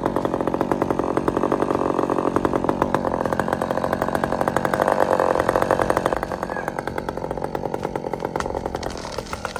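Chainsaw running steadily with a rapid buzzing pulse, a little quieter for the last few seconds.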